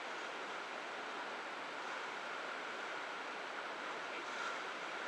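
Steady rush of wind and sea water streaming past a wooden sailing ship's hull as it sails.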